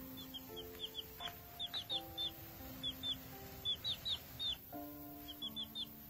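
Chick peeping: many short, high cheeps, each falling in pitch, in quick runs with a brief pause about three-quarters of the way through, over background music of slow held notes.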